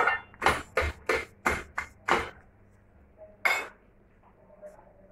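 Metal slotted spatula knocking and clattering against a ridged grill pan: a quick run of about seven knocks over the first two seconds, then one more about three and a half seconds in.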